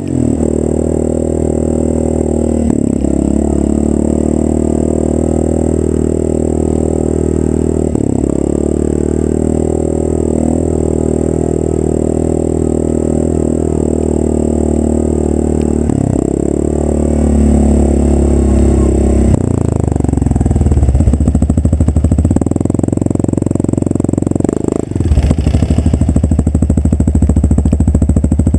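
ATV engine running steadily, then revved harder from about twenty seconds in, its pitch rising and falling as the machine is worked off a downed tree.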